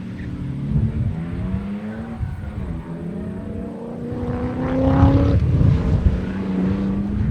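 Ford AU Falcon's engine accelerating hard under race conditions, its note climbing with the revs and dropping at gear changes about two and a half and five seconds in. It is loudest just before the second shift.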